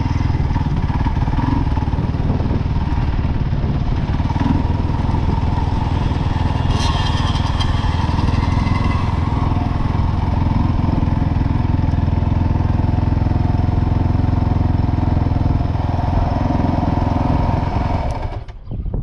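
Kawasaki KFX 450R ATV's single-cylinder four-stroke engine running steadily at speed, loud and close, then dropping away about a second before the end.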